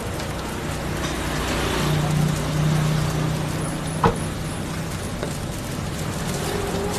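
A steady engine drone over busy street noise, growing a little louder in the middle, with one sharp clink about four seconds in.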